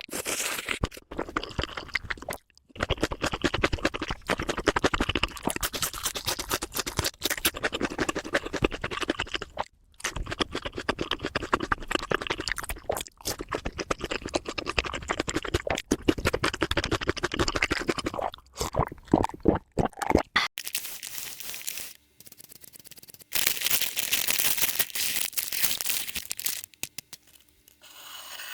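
Close-miked eating: rapid crunching and chewing of crispy food, thick crackly bites with barely a pause. Past the middle the crunching stops, and after a short lull a few seconds of steady hiss-like rustle follow.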